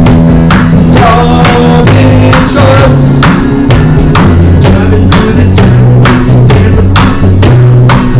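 Music with a steady drum beat over a bass line, with a melody on top.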